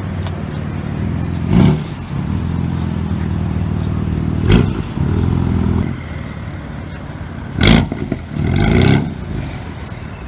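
BMW sedan with a muffler-deleted, straight-piped exhaust idling, blipped up four times in quick, loud revs that drop straight back to idle.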